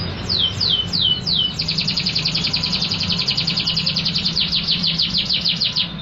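Canary singing loudly: a few falling whistled notes, then a long rapid trill that stops near the end, over a steady low hum.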